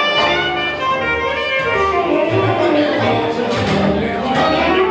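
Traditional jazz band playing live: several melody instruments over a steady low bass line, with some notes sliding down in pitch about two seconds in.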